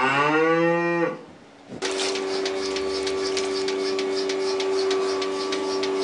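A cow moos once at the start, about a second long and falling in pitch. After a short pause comes the steady hum of a milking machine's vacuum, with the rapid, regular clicking of its pulsator.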